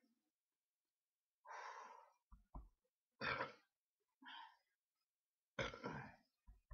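A man breathing out heavily several times, sighing and puffing, with a couple of soft low thumps about two and a half seconds in. The breathing of someone straining against a stomach full of beer after rapid shots.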